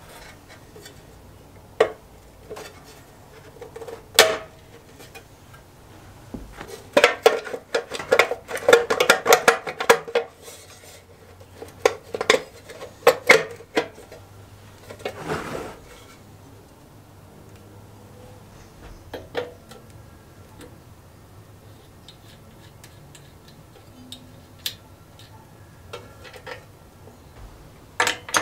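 Old small-engine parts knocking, clicking and rattling as they are handled and taken apart by hand. There is a dense run of metallic clatter about a quarter of the way in, a heavier knock around the middle, then scattered light ticks and a click near the end as a socket goes onto the spark plug.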